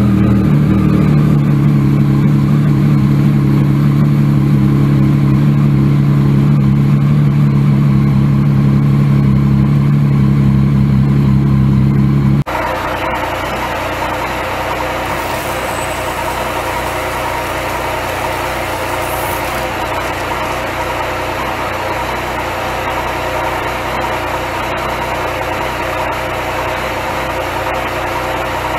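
Yamaha MT-09 Tracer's 847 cc three-cylinder engine idling steadily on its quiet stock exhaust. About twelve seconds in, the sound drops abruptly in level and turns thinner and hissier, then holds steady.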